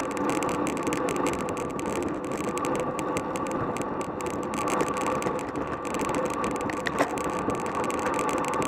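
Wind rushing over the microphone and tyres humming on asphalt as a road bicycle rides in a racing group at about 22 to 25 mph, a steady noise with a faint drone. A single sharp click comes about seven seconds in.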